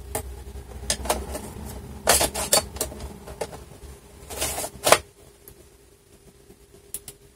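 Plastic clicks, knocks and scraping as a DVD drive blanking plate is pushed into the optical drive bay of a Lenovo IdeaPad 330-17IKB laptop, with the loudest knocks about two and four and a half seconds in. After about five seconds only a few faint ticks of a screwdriver being handled.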